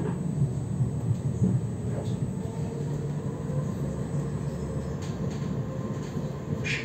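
Tram running on its rails, heard from inside the car: a steady low rumble with a faint steady electric hum. A short higher-pitched sound comes right at the end.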